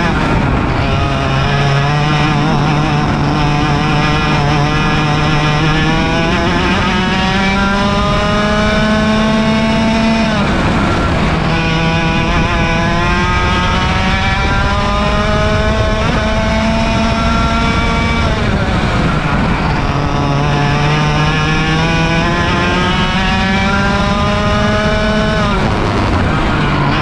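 100cc two-stroke kart engine at full throttle, recorded onboard. Its pitch climbs slowly through three long pulls and dips sharply as the throttle is lifted, about 10, 18 and 26 seconds in.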